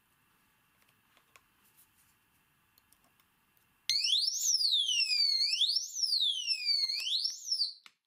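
Faint clicks of a pick and tension wrench working in the cylinder of an ecolle alarm cable bike lock. About four seconds in, the lock's built-in alarm goes off, set off by the tampering: a loud electronic siren whooping up and down about every second and a half. It stops just before the end.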